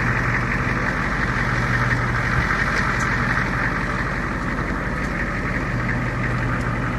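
Vehicle engine running steadily under a constant rushing noise, with a low hum that drops out after a couple of seconds and returns near the end.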